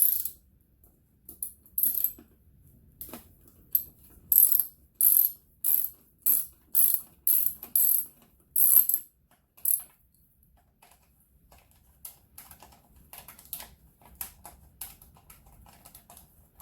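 Ratchet wrench worked in short strokes, each stroke a quick burst of clicking, about one and a half strokes a second through the middle, with fainter clicks near the end.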